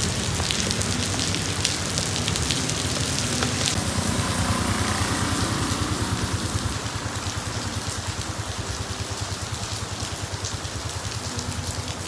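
Rain falling, with a motorcycle engine running underneath in a fast, even pulse.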